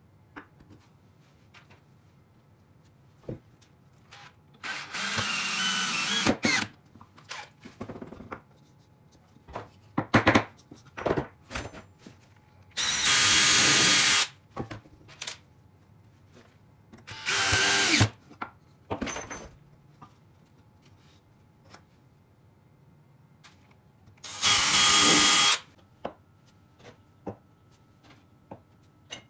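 Cordless drill running into pine wood in four short bursts of about a second each, driving into the blocks. Short knocks and clicks of wooden pieces being handled on the bench fall between the bursts.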